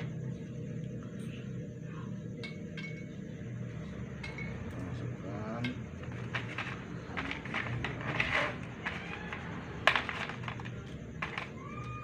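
Scattered light clinks and knocks of glass bottles and small items being handled, with one sharper knock about ten seconds in, over a steady low hum.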